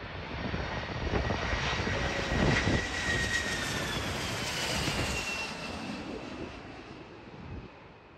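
Jet airliner passing overhead on its landing approach: a rushing engine noise that swells to its loudest about two and a half seconds in, its whine sliding down in pitch as it passes, then fading away. Wind buffets the microphone underneath.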